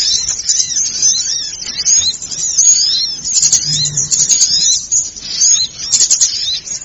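Dense chorus of many small birds chirping and twittering at once, with rapid high-pitched calls overlapping without a break: a bird-lure recording made to draw small songbirds in. A brief low hum sits under it near the middle.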